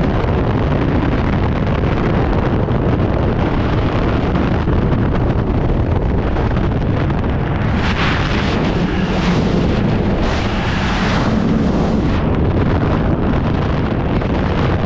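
Freefall airflow buffeting the camera's microphone: a loud, steady rush of wind, with a harsher, brighter hiss for about three seconds near the middle.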